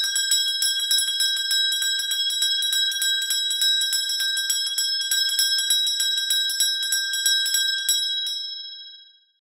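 A small bell ringing rapidly, struck several times a second with a bright metallic ring. It stops about eight seconds in and the ring dies away.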